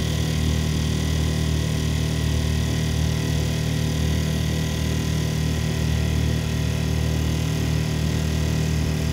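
Boat motor running steadily, an even low drone that holds the same pitch and level throughout.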